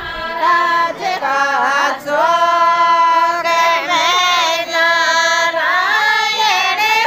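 Women singing a Shekhawati Rajasthani folk song (lokgeet) in long drawn-out notes, with short breaks between phrases.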